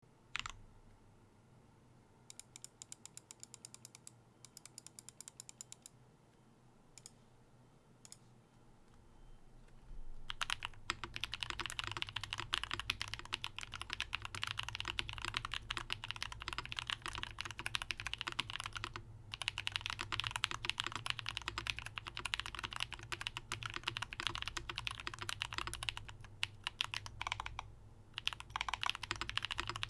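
Custom LVL TYPE-01/80 mechanical keyboard with lubed Holy Panda tactile switches and GMK keycaps being typed on. A few isolated key clicks and two short runs of quick, evenly spaced presses come first. About ten seconds in, steady fast typing starts and keeps going, pausing briefly twice.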